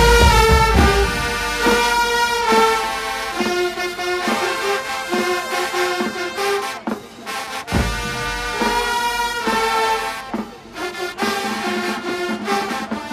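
High school marching band brass section playing a melody in held, stacked notes. Heavy bass drum hits come at the start and again about two-thirds of the way through, after a short break in the playing.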